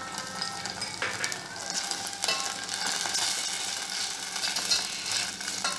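Sauce sizzling in a stainless steel pot while it is stirred with a metal slotted spoon, which scrapes and clinks against the pot a couple of times. Cornflour slurry has just gone in to thicken the sauce.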